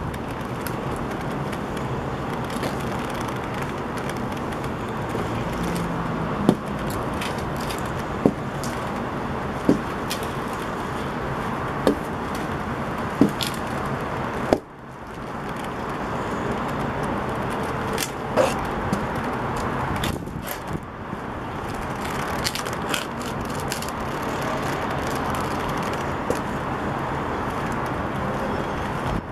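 Leather-soled Embossy AM Patrol riding boots with spurs stepping on concrete: sharp heel clicks spaced a second or two apart, over a steady wash of city traffic noise.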